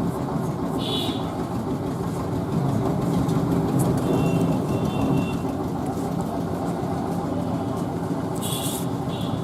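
Steady low rumble of engines and road traffic, with a few short high-pitched tones about a second in, around four to five seconds in, and near the end.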